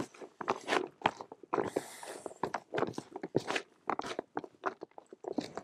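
Hands stirring a bucket of carp bait made of crumbed and whole boilies, sweetcorn and dead maggots, giving many short, irregular strokes.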